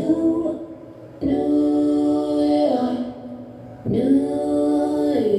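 Slow music with a singer holding long sustained notes, two held notes of about a second and a half each.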